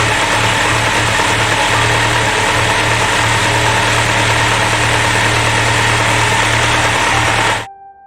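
Kawasaki Z750S inline-four engine running at a steady speed, then cut off suddenly near the end, followed by a few short musical tones.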